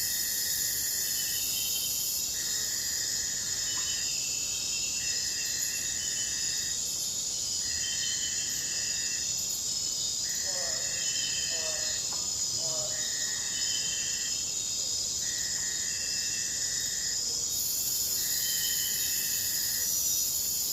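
Forest or jungle ambience: a dense, steady insect chorus, with one insect call repeating in bursts of about a second and a half roughly every two and a half seconds. A short run of lower animal calls comes about halfway through.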